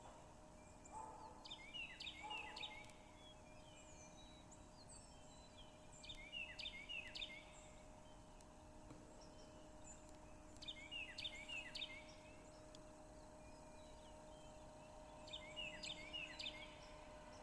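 A bird sings a short phrase of quick repeated notes four times, about every four and a half seconds, over a faint steady hum.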